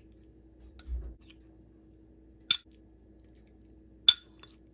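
A spoon clinking sharply twice, about a second and a half apart, against glass and ceramic dishware while pieces of canned saba are spooned into a baking dish. A few faint ticks come between the clinks, and there is a soft thud about a second in.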